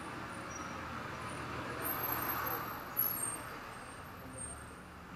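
A delivery truck passing by. Its engine and road noise swell to a peak about two to three seconds in, then fade away, with a short sharp knock about three seconds in.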